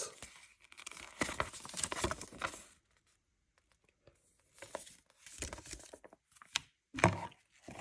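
Paper and plastic packaging being handled: irregular rustling and crinkling, a pause about three seconds in, then scattered rustles and sharp clicks.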